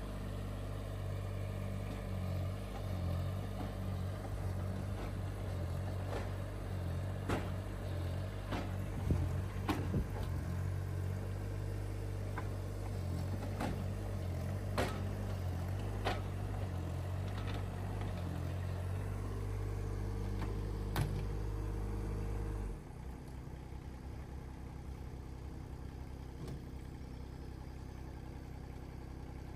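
Kubota U15 mini excavator's three-cylinder diesel engine running steadily, with a dozen sharp clanks and knocks scattered through it. About 23 seconds in, the engine sound drops suddenly to a lower, quieter level.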